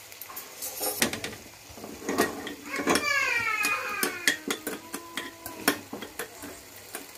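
Metal spoon clicking and scraping against a small nonstick frying pan as chopped cashews are stirred in ghee. A short falling pitched sound comes about three seconds in.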